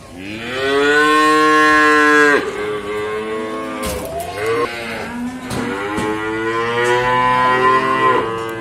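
Calves mooing: one long, loud moo over the first two seconds, then further long moos through the rest.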